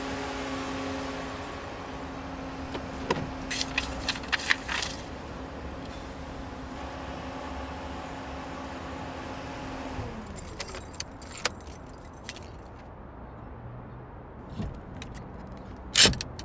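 A car engine runs steadily, then is switched off about two-thirds of the way through. Keys jangle and click at the ignition, and near the end one loud metallic clank comes as a steering-wheel club lock is put on the wheel.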